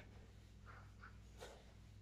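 Near silence: room tone with a steady low hum and a few faint, brief soft sounds, including a small click about one and a half seconds in.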